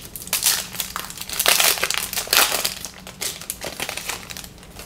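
Trading card pack wrapper crinkling in the hands in irregular bursts, loudest in the first half and tapering off near the end, as a new pack is opened.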